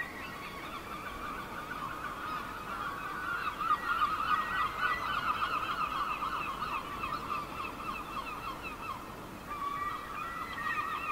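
A flock of seagulls calling over one another in a dense, continuous chorus of cries, busiest through the middle, over a faint wash of ocean surf.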